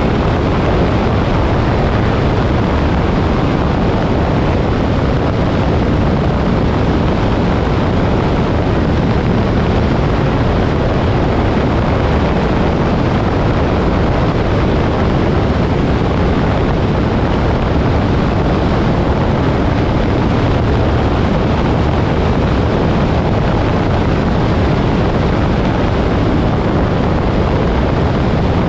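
Moto Guzzi Griso V-twin motorcycle cruising at a steady road speed: engine note and wind rush blend into one loud, unbroken noise.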